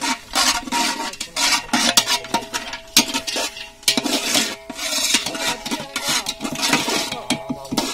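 Flat steel spatula stirring cashews and peanuts frying in a large aluminium pot, with quick, irregular scrapes and clinks of metal on metal.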